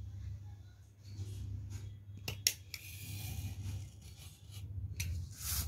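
Utility knife blade drawn through card along a ruler: a click about two and a half seconds in, then a scratchy cutting stroke of about a second, and a second stroke near the end.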